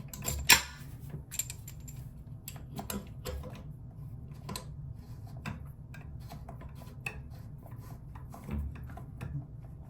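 Plastic and metal plumbing fittings clicking and tapping as the bidet's water supply hose is handled and threaded on by hand, with a sharp knock about half a second in, over a steady low hum.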